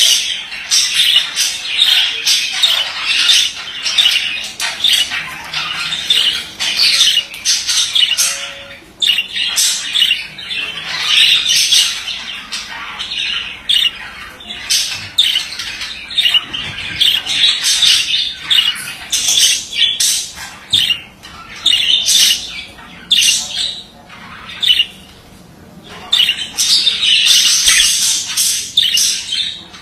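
Male budgerigar warbling: a fast, continuous chatter of squawks, clicks and chirps, with a brief pause about 25 seconds in.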